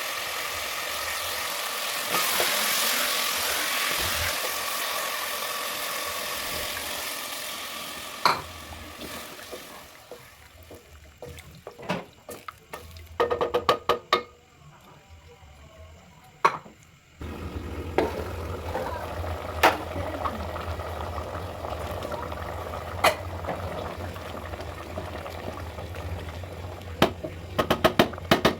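Food sizzling in a cooking pot, fading away after several seconds. Then sharp clinks and knocks of a utensil against the pot, and later a steady low hum with occasional clinks.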